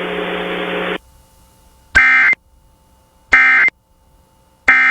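Emergency Alert System end-of-message data bursts over FM radio: short, harsh, buzzy squawks of data tones about 1.3 s apart, two whole ones and a third starting near the end. They follow a second of steady radio hiss that cuts off suddenly and signal that the alert message is over.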